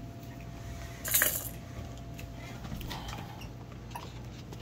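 A short clinking rattle about a second in, with a few faint clicks later, over a steady low hum: a baby handling the plastic toy tray of a baby walker.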